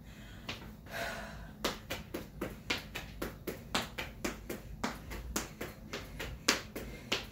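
Quick footfalls of an agility-ladder footwork drill: feet tapping the floor in fast, slightly uneven steps, about four to five a second, after a short pause about a second in.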